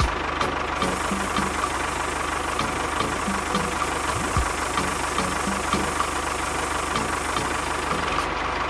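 An engine running steadily at idle, with an even low pulse.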